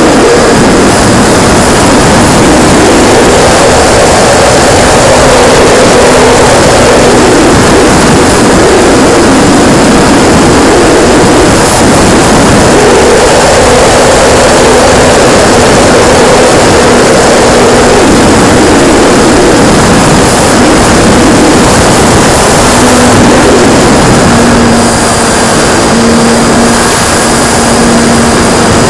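Radio-controlled P-51D Mustang model heard from its onboard camera in flight: loud, constant rushing noise, with the motor and propeller note coming and going in stretches of a few seconds as the throttle changes.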